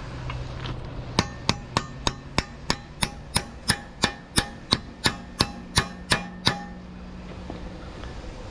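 Hammer blows on metal, driving a steel pivot pin through an excavator's thumb linkage: about seventeen ringing strikes, roughly three a second, stopping about five seconds after they begin.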